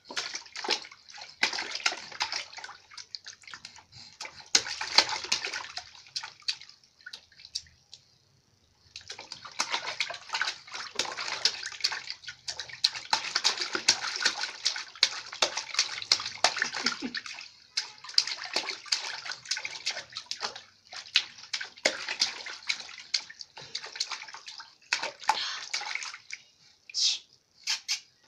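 Baby slapping and patting bathwater in a large plastic tub: runs of rapid, sharp splashes, with a brief lull about eight seconds in.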